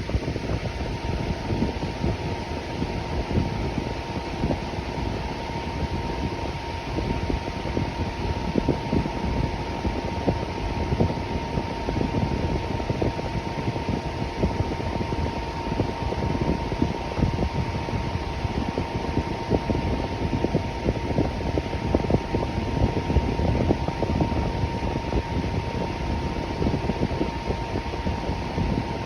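Electric fan running steadily: a constant rush of moving air, heaviest in the low end, with a thin steady whine just under 1 kHz.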